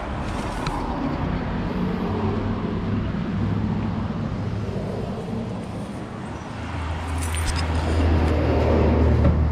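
Old Ford Mustang's engine running after a jump start from a portable jump pack on a weak battery. A deeper, louder steady hum sets in about seven seconds in, with a few light clicks around then.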